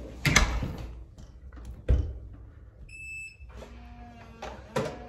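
A single short, high electronic beep about three seconds in, among a few sharp knocks and handling thumps.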